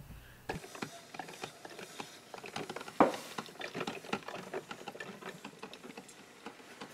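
Black+Decker drip coffee maker brewing, with rapid, irregular popping and sputtering and one louder pop about three seconds in.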